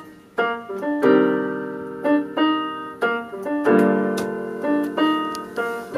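Electronic keyboard played with a piano-like sound: single notes and chords struck one after another, each ringing and dying away, with a fuller chord struck about three and a half seconds in.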